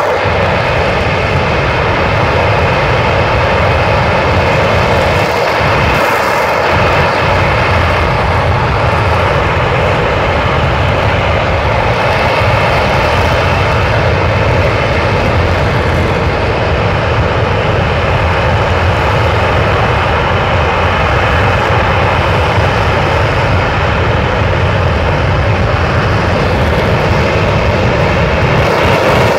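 Aerojet Rocketdyne RS-25 liquid-hydrogen/liquid-oxygen rocket engine firing at full thrust on a test stand: a loud, steady roar.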